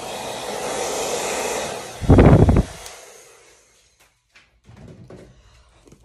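Hair dryer running, blowing air across wet acrylic paint to spread a bloom pour. About two seconds in, a loud low buffeting of the air stream on the microphone, then the dryer cuts off around three seconds in.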